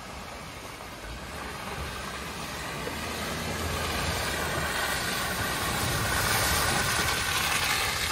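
2005 Toyota RAV4 engine and tyres as the SUV drives up a muddy dirt track, growing steadily louder as it approaches and passes close by.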